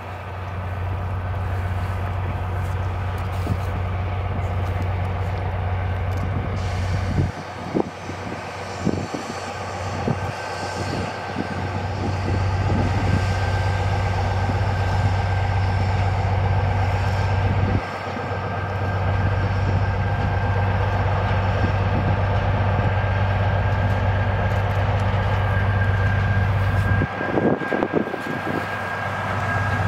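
A train running: a steady low drone with a thin high whine over it, growing louder toward the end.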